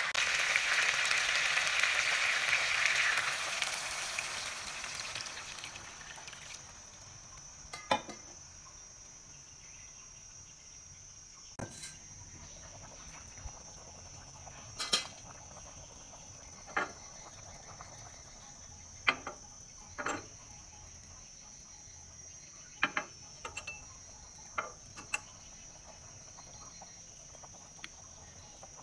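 Cooking in a frying pan: a loud sizzling hiss that fades out over the first six seconds or so. Then a faint steady high whine, with scattered sharp clinks of a utensil or lid against the pan.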